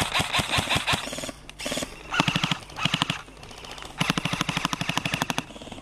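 Airsoft guns firing several rapid full-auto bursts one after another, the longest lasting about a second and a half near the end.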